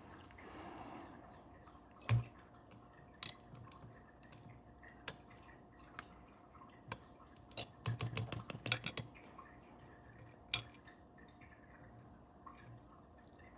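Scattered sharp clicks and taps from taking apart a Mul-T-Lock Interactive dimple lock by hand: tools and small lock parts knocking and clinking, with a quick run of clicks about eight seconds in.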